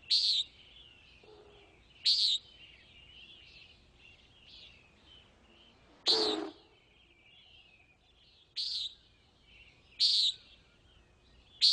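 Common nighthawk giving its nasal 'peent' flight call, six short calls spaced one to four seconds apart, the loudest about six seconds in. Faint twittering from other birds runs underneath.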